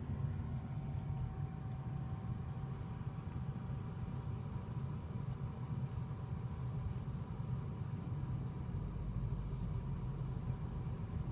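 Steady low rumble of a car heard from inside the cabin while driving, with two faint steady tones. Faint soft hisses recur about every two seconds.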